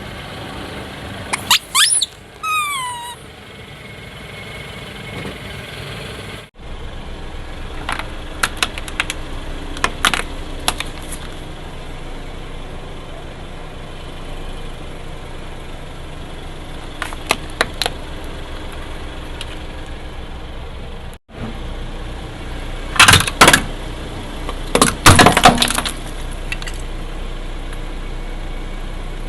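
A car's engine running steadily while its tyres roll over and crush brittle objects: several clusters of sharp cracks and snaps, the loudest near the end. A short squeak that falls in pitch comes early on.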